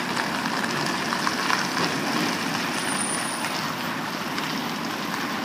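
Steady outdoor hiss of distant road traffic, with a brief faint high beep about halfway through.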